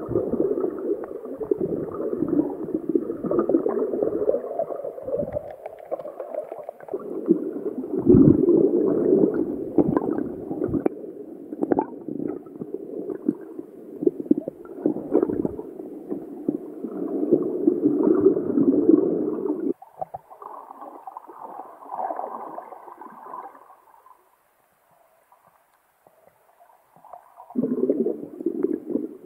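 Muffled, uneven sloshing and gurgling of water around a submerged camera, dull with no high end. About two-thirds of the way through it cuts off abruptly to a thinner, fainter sound. It then falls to near silence for a few seconds and comes back just before the end.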